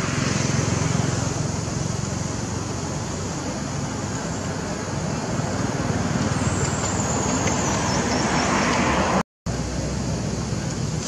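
Steady road traffic noise, swelling as a vehicle passes and cutting out for a moment about nine seconds in.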